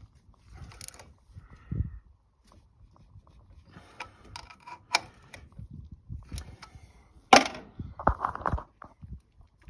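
Scattered clicks and knocks of hand tools and parts being handled while servicing a riding mower, with one sharp knock about seven seconds in and a quick run of knocks just after.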